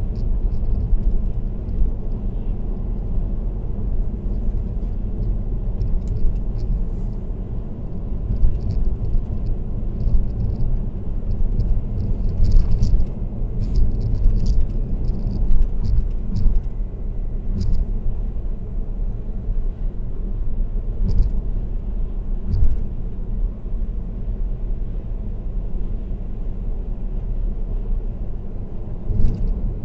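Steady low road and tyre rumble of a car cruising on an expressway, heard through a dashcam, with scattered faint ticks and clicks.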